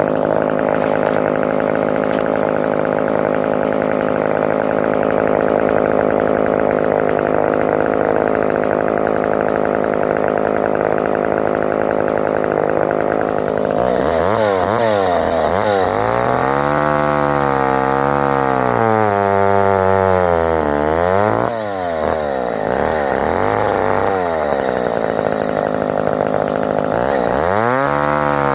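McCulloch two-stroke chainsaw running at a steady speed for about the first half, as it cuts through old, dry wood. Then it is revved up and down several times, its pitch rising and falling, with a brief drop about three quarters of the way through.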